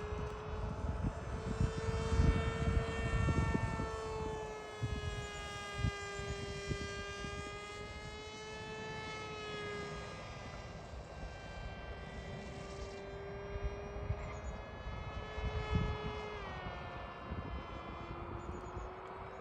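Volantex Ranger 1600 RC plane's electric motor and propeller whining steadily in flight, the pitch drifting up and down and dropping lower near the end. Gusty wind rumbles on the microphone.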